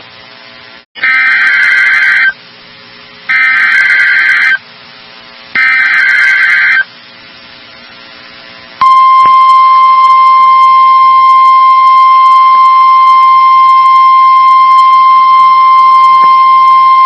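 Emergency alert signalling: three buzzy, warbling bursts of SAME digital header data, each lasting a little over a second. About nine seconds in, the NOAA Weather Radio 1050 Hz warning alarm tone starts, a single loud, steady tone, the header and attention tone that open a new weather warning broadcast.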